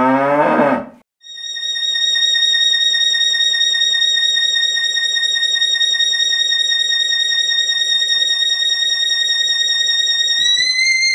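A short pitched electronic sweep, a moment's gap, then a high synthesizer tone held steadily with a slight vibrato, which bends up in pitch near the end.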